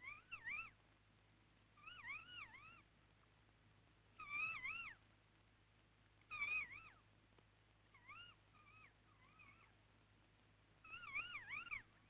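Kea, the New Zealand mountain parrot, calling: about six short bursts of quick up-and-down wavering notes, roughly two seconds apart.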